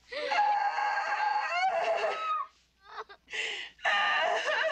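A young girl screaming and crying in distress: one long, high wail, a brief break, then another long wail near the end.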